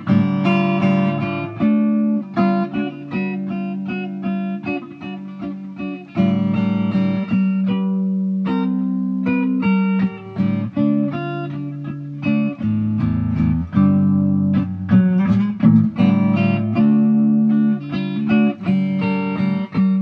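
Instrumental section of a song: a guitar picking a quick melody over sustained low bass notes.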